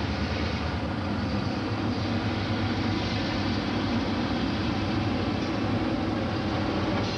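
EMD F-unit diesel-electric locomotive hauling a passenger train past at steady speed, with diesel engine drone and wheel and rail noise.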